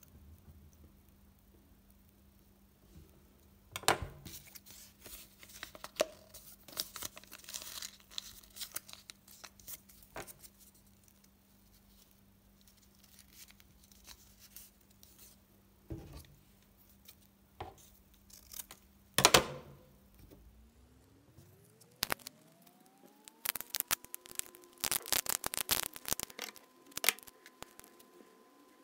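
Hands handling a wooden spring clothespin and adhesive tape: scattered sharp clicks and handling noises, the loudest a snap about two-thirds of the way through, then a dense run of quick clicks and crinkly tearing near the end. A faint steady hum underneath glides up in pitch partway through and then holds at the higher tone.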